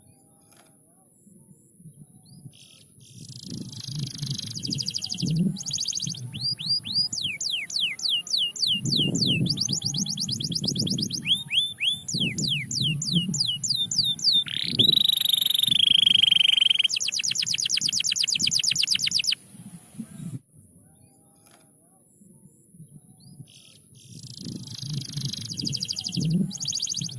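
Domestic canary singing a long phrase of rolling trills: buzzy rattles and fast runs of falling whistled sweeps, then a rising note into a held whistle about halfway through, and a very fast high trill that cuts off suddenly. After a pause of a few seconds, the song starts again near the end.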